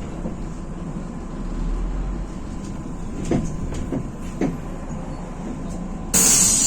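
Interior of a MAZ-105 city bus: steady cabin rumble with a few short knocks, then about six seconds in a sudden loud hiss of released compressed air as the bus's pneumatic doors open at the stop.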